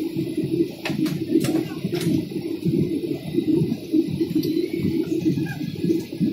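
Airliner cabin noise during descent: a low rumble of the engines and airflow, with a few faint clicks about a second in.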